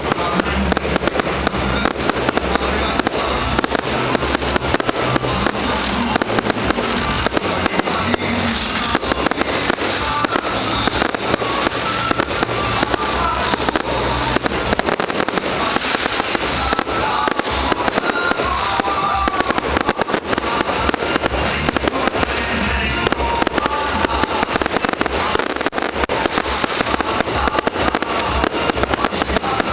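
Fireworks salute: a dense, unbroken run of bangs and crackling, with music playing underneath.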